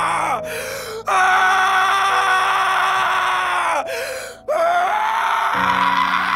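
A man's voice screaming a long, drawn-out 'AAAAH' in three stretches. There are short breaths about half a second and four seconds in, and the pitch sags at the end of each stretch.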